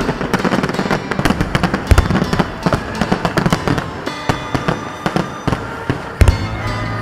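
Fireworks and firecrackers going off in rapid, dense crackling bangs, with heavier booms about two seconds in and again near the end.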